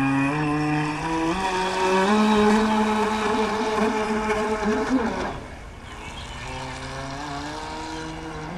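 Electric drive motors of a Thunder Tiger Atlantic Motor Yacht RC boat whining under throttle. The pitch rises in steps as the throttle is opened, then drops about five seconds in to a lower, quieter, steady whine as the boat is throttled back.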